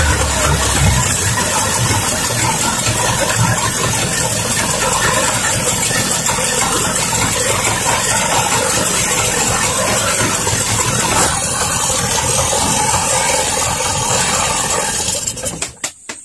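Yamaha 40 hp outboard motor running steadily after being rebuilt with new piston rings. It eases down from a higher speed about a second in, and the sound breaks off near the end.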